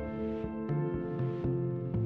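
Soft instrumental background music with sustained chords over shifting bass notes and a light beat.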